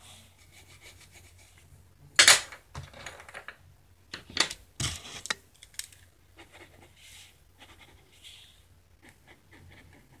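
Pencil scratching on sketchbook paper. About two seconds in comes a loud knock, then several rattling clatters over the next three seconds as the pencil is put down and a pen picked up. Soft pen strokes on paper follow.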